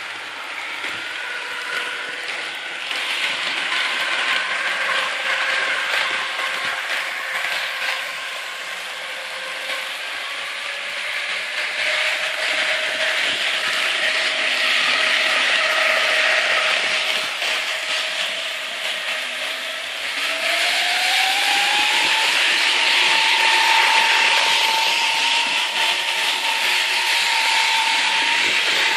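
Märklin 7778 H0-scale model of the DB class 403 electric rail car running around its track: a whine that rises in pitch about ten seconds in and again about twenty seconds in as the train speeds up, over a steady rushing noise.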